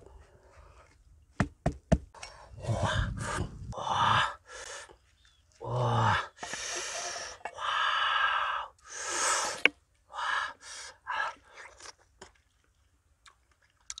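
Large knife scraping and slicing into the peel and flesh of a firm fruit in a series of short strokes, with a few sharp clicks near the start.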